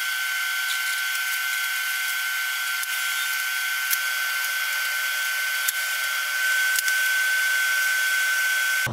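Steady high-pitched whine over a hiss from running shop machinery, with a few faint clicks.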